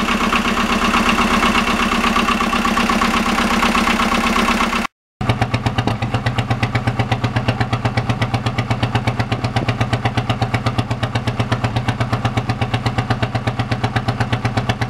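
Boat's multi-cylinder diesel engine idling steadily, freshly started after winter layup. About five seconds in, after a brief break, the sound switches to the exhaust outlet at the hull, where the exhaust comes out as a rapid, even puffing.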